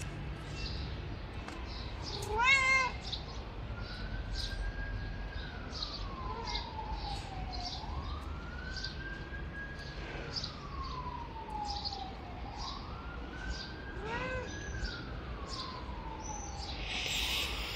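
Ginger-and-white cat meowing: one loud meow about two and a half seconds in and a fainter one near fourteen and a half seconds. Behind it a siren wails, slowly rising and falling in pitch again and again.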